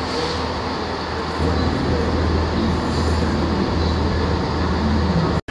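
DB Cargo Class 66 diesel locomotive, with its EMD two-stroke V12, and a second locomotive coupled to it running away along the line, giving a steady low engine hum. The sound cuts off suddenly near the end.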